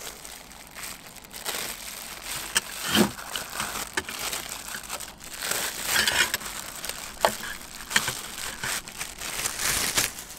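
Clear plastic bag crinkling and rustling in irregular bursts as hands squeeze cooked rice out of it into bowls.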